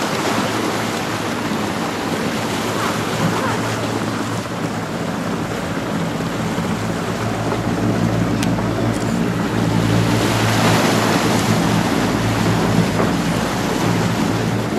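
A large rescue helicopter flying low over the sea, its rotor and turbines making a steady hum with several even low tones that grows louder from about halfway in as it comes closer. Surf washing in underneath.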